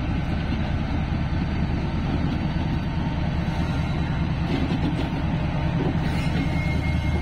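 GEU40 diesel-electric locomotive engine running with a steady, loud low drone.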